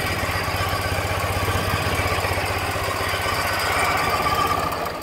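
The 2006 Ural Troyka's air-cooled 750 cc boxer twin idles steadily with an even, rapid pulsing beat, and begins to die away at the very end.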